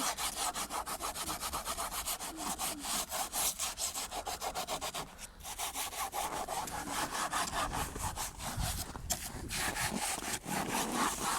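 Hand saw cutting through wood in quick, even back-and-forth strokes, about four or five a second, with a brief pause about five seconds in before the sawing starts again.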